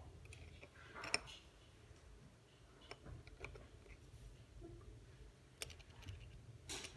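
Faint, scattered small clicks of watchmaker's tools and tiny metal parts being handled while a mechanical watch movement is taken apart, a few separate clicks over a low hum.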